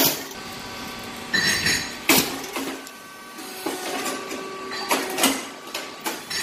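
Crisp puffed rice cakes handled and knocked together, giving a few sharp clicks and short crackly rustles, over a faint steady machine hum.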